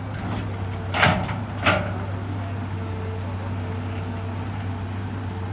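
Heavy diesel engine of a Hitachi EX200 excavator running steadily, with two short, loud clunks about a second in and again just after.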